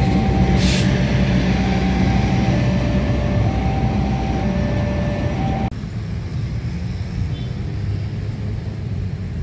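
Diesel locomotive of an Indonesian KAI train passing close by, its engine a loud, steady low rumble, with a short hiss about half a second in. After an abrupt cut about halfway, a quieter low rumble continues.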